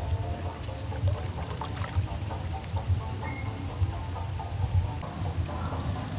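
Night insects, crickets, trilling in a steady high-pitched chorus, over a low uneven rumble, with faint short distant animal calls now and then.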